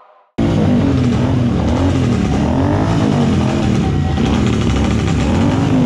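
Motorcycle engines revving, rising and falling in pitch about once a second. The sound starts suddenly about half a second in and then holds at a steady loud level.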